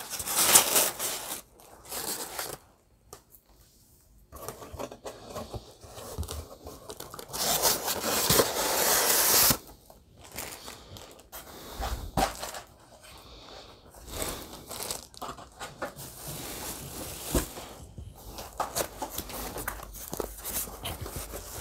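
Cardboard boxes and plastic wrapping handled and opened by hand: irregular crinkling, rustling and tearing, with a louder stretch of crinkling for about two seconds near the middle.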